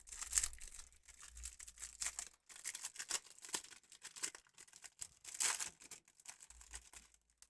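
Crinkly plastic trading-card packaging being handled and torn open: a quick, irregular run of rustles and tearing that stops abruptly near the end.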